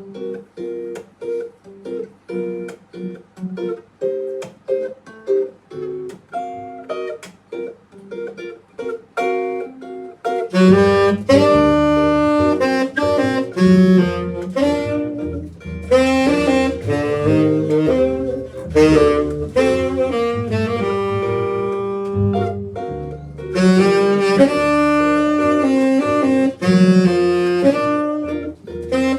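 A live band playing: a guitar plays short, choppy rhythmic chords on its own, then about ten seconds in the whole band comes in loudly with a saxophone lead over bass and drums.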